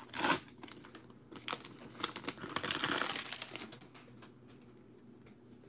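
Foil trading-card pack wrappers crinkling as they are torn open and crumpled, loudest just after the start. Then quieter rustling and light taps as the cards are handled, fading toward the end.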